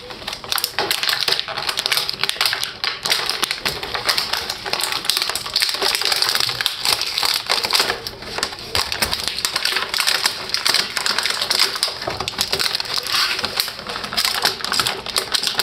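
Action figure packaging being opened by hand: a dense, continuous crackling and clicking of plastic and cardboard being torn and handled.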